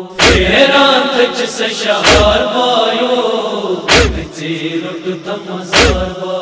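A crowd of men chanting a Kashmiri noha (Shia lament) in unison, with a heavy collective chest-beating thump (matam) about every two seconds, four in all.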